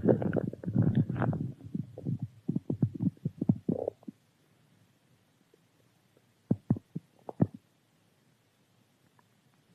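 Human stomach growling from hunger: a long run of churning gurgles for about four seconds, then a lull, then three short gurgles in quick succession.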